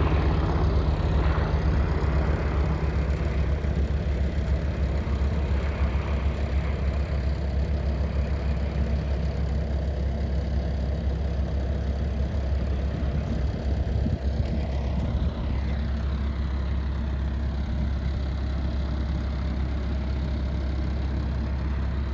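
Helicopter engine and rotor running steadily with a low, rapid beat and a deep hum, at a constant speed.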